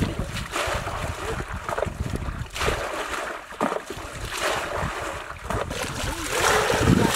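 Muddy pond water sloshing and splashing as wet mud is scooped by hand into a bucket, with wind rumbling on the microphone.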